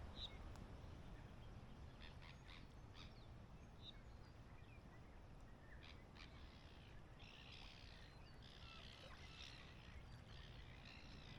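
Faint, steady wind rumble on the microphone, with faint bird calls chirping over it in the second half.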